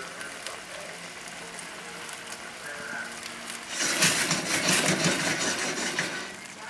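Chicken thighs sizzling and simmering in white wine in a stainless steel pan over a high gas flame. About four seconds in, the pan is shaken on the burner for a couple of seconds: the sizzling grows louder, with a run of clicks and scrapes of the pan on the grate.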